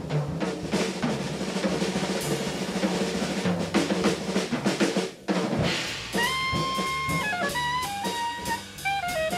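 Jazz quartet: drum kit plays busy fills with bass for about five seconds, breaks off briefly, then the saxophone comes in with a long held note followed by a falling line, over bass and drums.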